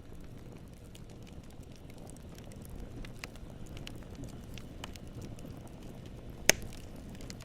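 Campfire burning: a steady low rumble of flames with scattered crackles and pops of burning wood, and one sharp, loud snap near the end.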